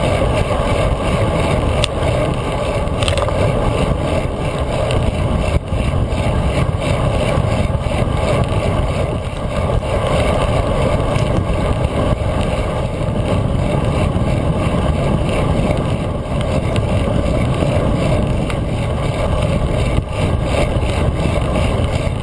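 Steady wind rush and road rumble of a road bike riding at speed, picked up by a handlebar-mounted GoPro, with a few short knocks from bumps in the ride.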